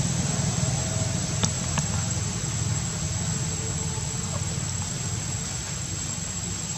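Steady low rumble of an engine running, easing off slightly, with a thin steady high-pitched whine above it.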